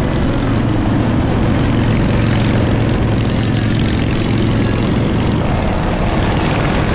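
Motorcycle engine running steadily under way, with a constant low drone and wind rush.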